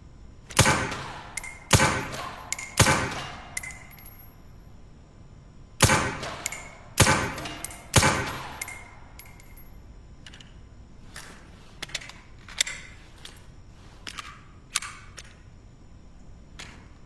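SilencerCo Maxim 9 integrally suppressed 9mm pistol firing two strings of three shots, about a second apart, each a sharp report with a short echoing tail. Several fainter sharp clicks and taps follow.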